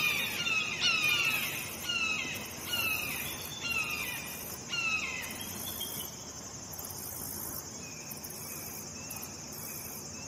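Red-shouldered hawk calls: a series of loud, down-slurred screams repeated about every half second, growing fainter and mostly dying away about six seconds in. A steady high insect buzz runs beneath them.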